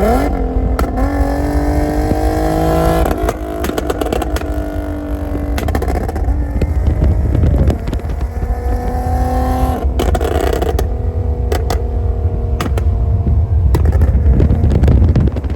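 Tuned Infiniti Q50's exhaust, with test pipes, resonators and the muffler deleted, as the engine is revved several times. Between and after the revs it crackles and pops on the overrun from a crackle tune, with a dense run of pops about two-thirds of the way through.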